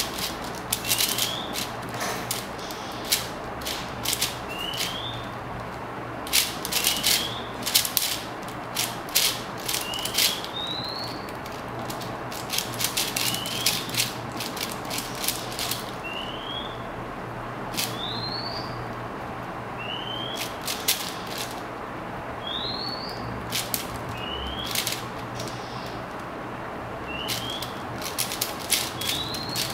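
A 4x4 speedcube being turned fast in the hands: irregular bursts of plastic clicking and clacking from the layer turns. Behind it, a bird repeats a short upward-sliding chirp every two to three seconds.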